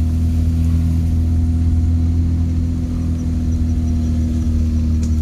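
A vehicle's engine running with a steady low hum, the drive going on without change.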